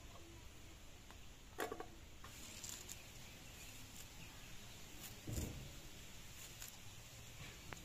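Faint scraping and cutting as a squash is peeled against an upright curved floor blade (boti), with two short, louder knocks or scrapes about a second and a half and five seconds in.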